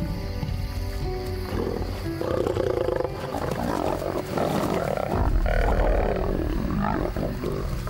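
Lions snarling and growling in a fight, starting about a second and a half in and loudest just past the middle, as a lioness drives young lions away from a cub. Background music plays under it.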